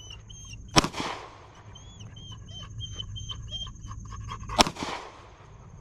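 Two gunshots about four seconds apart, the first about a second in, each ringing out briefly. Between them a dog pants.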